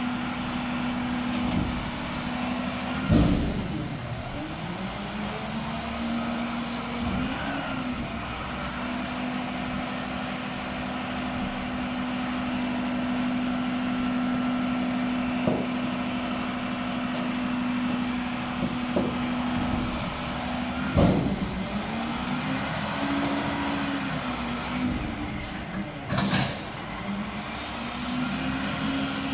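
Mack front-loading garbage truck running with a steady drone that dips and rises in pitch several times as its hydraulic arms work the forks to lift a dumpster. A few loud metal clanks come from the forks and bin, the loudest a few seconds in and again about two-thirds through.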